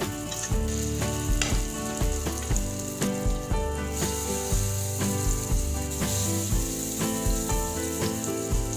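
Egg and enoki mushroom batter sizzling in shallow oil in a nonstick frying pan as spoonfuls are added and shaped, over background music with a steady beat.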